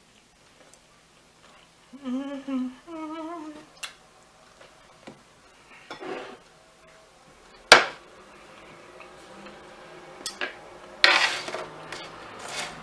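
A woman humming with her mouth closed, two short wavering hums, while eating. Then scattered clicks and clatter of cutlery and dishes, the loudest a sharp knock about eight seconds in.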